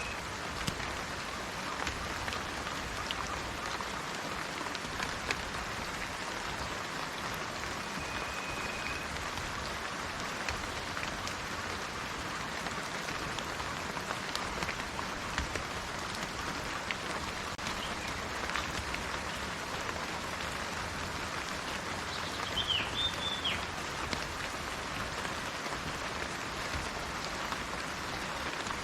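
Steady rainforest rain with scattered drops pattering close by. A bird gives one short steady whistle about a third of the way in, and a few quick chirps about three-quarters of the way through.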